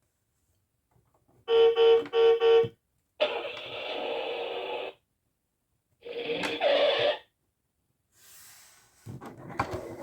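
VTech Playtime Bus toy playing its electronic sound effects through its small speaker: three quick beeping notes, then two short noisy effects, with more sound building near the end.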